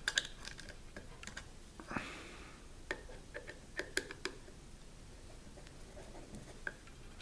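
Small countersunk wood screws being turned into a hinge on a wooden box with a hand screwdriver: irregular light clicks and ticks of the screwdriver tip working in the screw heads, with a brief scrape about two seconds in.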